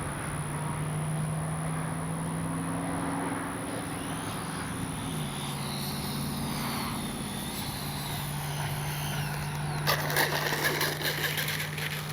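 Electric ducted-fan RC jet, an F-86 Sabre with a 64 mm fan, running in the air: a steady drone that drops in pitch about halfway through, with a faint gliding whine. A rattling patch of clicks comes near the end.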